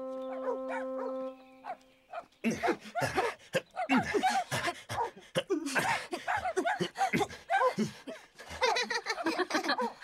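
A few held notes of background music, then from about two and a half seconds in, several cartoon dogs barking and yapping without a break.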